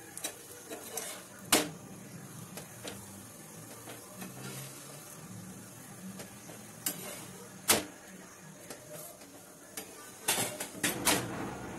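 A spatula clicking against a nonstick frying pan as a paratha is pressed and turned on it: two single sharp taps, then a quick run of taps near the end, over a low steady background.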